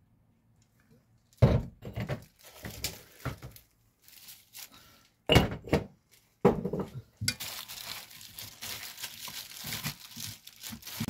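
Sharp crinkling and knocking of kitchen handling, then a continuous crinkly rustle from about seven seconds in as a hand in a disposable plastic glove mixes raw sliced beef with its seasoning in a pan.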